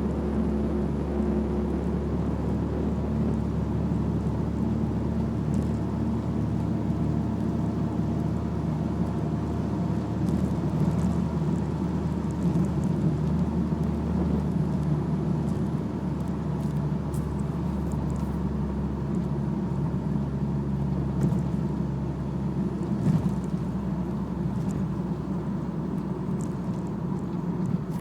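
BMW E46 giving a steady low hum over the noise of the running car; the owner puts the hum down to a driveshaft (long shaft) problem.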